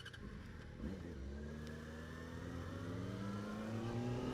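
Yamaha FZ6's 600cc inline-four engine pulling in a low gear, its pitch rising slowly and steadily from about a second in.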